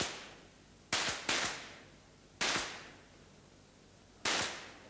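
Pistol shots from .22 free pistols on a covered shooting range, fired at irregular intervals. There are four sharp cracks, two of them close together about a second in, and each crack has a short echoing tail.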